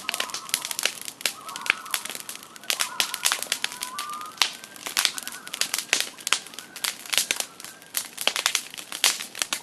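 Wood campfire crackling and popping in quick, irregular snaps throughout. A common loon calls faintly in the background during the first half, a wavering, drawn-out call.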